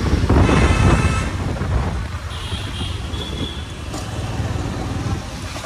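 Road traffic passing close by, cars and motor scooters, with a loud low rumble in the first couple of seconds. A short horn toot sounds about halfway through.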